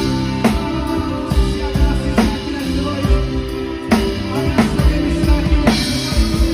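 A band playing music, with a drum kit keeping a steady beat under sustained instrument notes.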